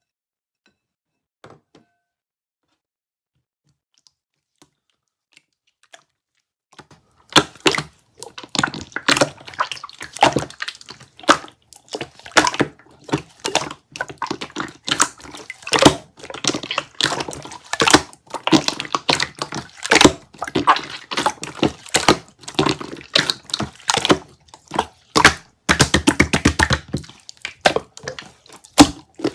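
Near silence for about seven seconds, then slime being pressed and squeezed by hand, giving a dense run of sharp clicks and pops, several a second.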